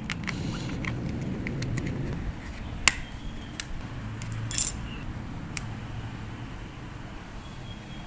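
Small hard objects being handled: scattered light clicks and taps, a sharper click about three seconds in and a louder brief rattle a little later, over low handling rumble.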